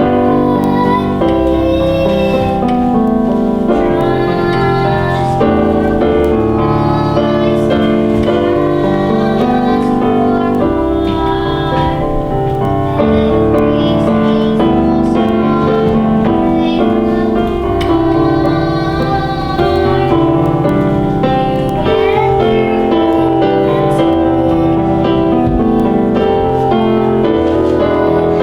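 Musical accompaniment with piano, playing continuously at a steady level.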